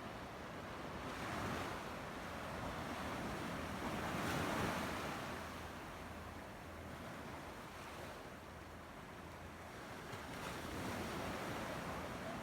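Sea waves washing onto the shore, the surf swelling and easing every few seconds, loudest about four to five seconds in.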